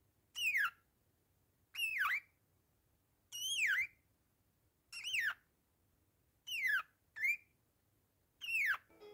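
Bourke's parakeet giving a repeated whistled call, each a falling note, about one every second and a half, seven in all, one of them short.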